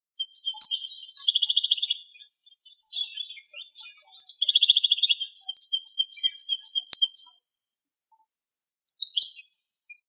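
Male European goldfinch singing: quick, high twittering phrases mixed with buzzy trills, broken by short pauses. One phrase ends in a run of clear, evenly repeated notes, about three or four a second.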